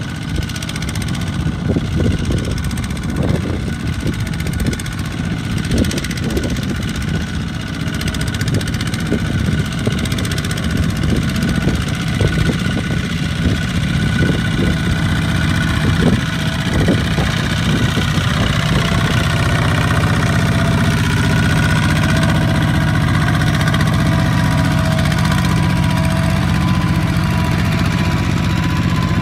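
Single-cylinder diesel engine of a two-wheel walking tractor running under load, a fast uneven chugging as it pulls a loaded trailer through deep mud. It evens out into a steadier drone in the last third.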